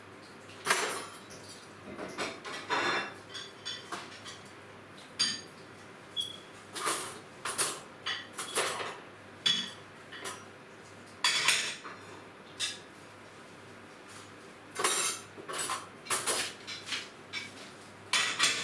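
Dishes and cutlery clattering and clinking irregularly as they are washed up by hand, with the odd brief ringing ping of crockery.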